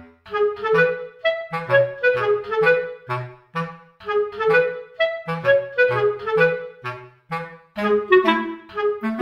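Background music: a bouncy tune of short, detached woodwind-like notes over a lower bass part, about three notes a second.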